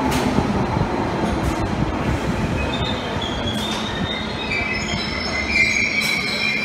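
London Underground 1972 Stock train pulling out of the platform: a steady rumble of wheels and motors, with high squealing from the wheels joining about three seconds in and growing stronger near the end.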